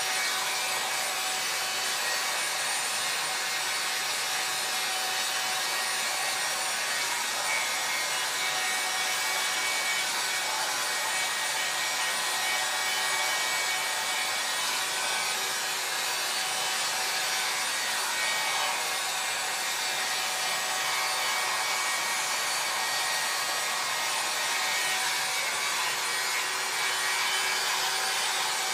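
Helen of Troy 1-1/2 inch hot-air styling brush running: a steady airy rush with a faint steady motor whine, as the brush is drawn through a beard to dry and style it.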